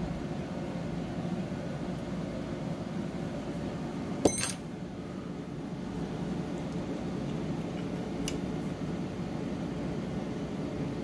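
Steady low background hum, with one sharp click that rings briefly about four seconds in and a fainter tick a few seconds later.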